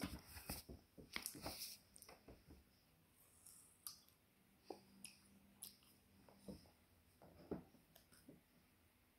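A young child biting and chewing pieces of melon: short, quiet mouth clicks, many in the first two seconds, then a few scattered ones.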